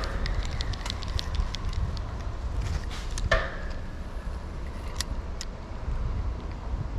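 Spinning reel being handled and cranked: a run of light, irregular clicks over the first few seconds and two short metallic pings about three seconds apart, over a steady low rumble of wind on the microphone.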